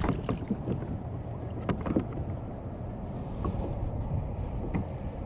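Wind buffeting the microphone and water lapping against a kayak's hull, a steady low rumble, with a few short knocks and clicks scattered through it.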